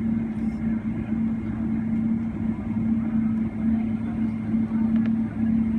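Cabin sound of a Boeing 777-300ER taxiing, heard inside the cabin: its GE90 turbofans at idle give a steady hum that swells slightly in strength, over the low rumble of the airliner rolling on the taxiway.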